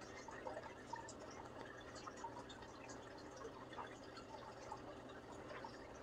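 Faint indoor room tone: a low steady hum with scattered soft short ticks and chirps throughout.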